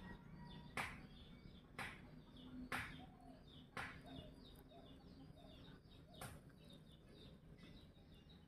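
Domestic rabbit biting and tearing off fresh grass blades, crisp snaps and crunches about once a second, thinning out in the second half, with faint bird chirps behind.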